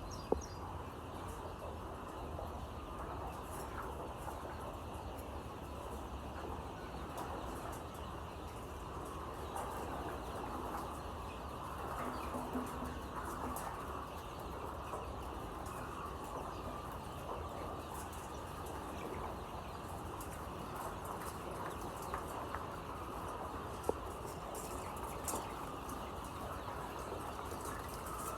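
A flock of chickens in a poultry shed making a steady mass din, with a few brief sharp clicks.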